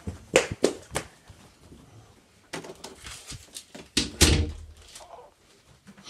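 Handling noise from a phone camera being carried and moved about: a run of sharp knocks and bumps with rustling between them, the loudest thump about four seconds in.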